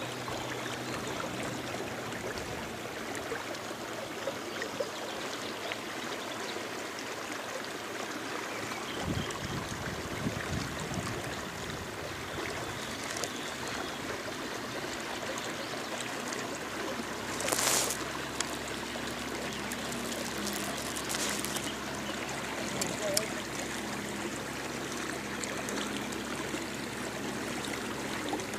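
Steady water noise as river water laps and runs around a small boat, with a brief louder rustle about two-thirds of the way in and a few light clicks after it.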